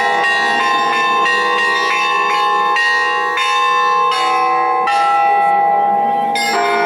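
Russian Orthodox church bells rung in a festive peal. Several bells of different pitch are struck in quick succession, about three strikes a second, each ringing on under the next.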